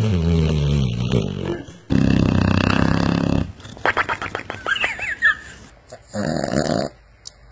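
A sleeping dog snoring: a long snore, then a louder one about two seconds in, a few short squeaky sounds, and a shorter snore near the end.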